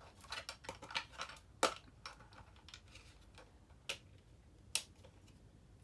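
Hard plastic clicks and taps from a Stridor action-figure toy being handled and set onto its display stand. A quick run of small clicks comes first, then a sharper single click, and two more single clicks near the end.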